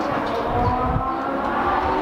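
Car engines running hard on a racetrack, a steady multi-toned engine note whose pitch climbs slightly from about a second in, over a low rumble.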